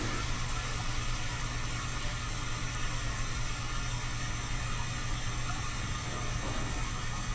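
Steady public-restroom ambience: a constant low hum under an even hiss, with no distinct events.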